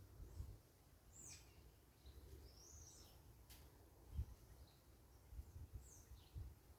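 Faint, scattered high chirps and short gliding calls of parakeets, a few seconds apart, over low rumbling thumps, the loudest about four seconds in.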